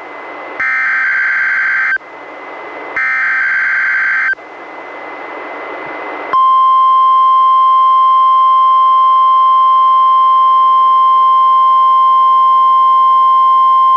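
NOAA Weather Radio required weekly test heard through a weather-radio receiver: the last two of three SAME digital header bursts, each a little over a second of shrill data warble, with radio hiss between them. About six seconds in, the steady 1050 Hz warning alarm tone starts and holds to the end.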